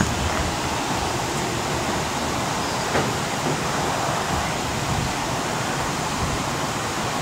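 Steady rushing steam hiss in the cab of the steam locomotive Flagg Coal Co. No. 75, standing under steam.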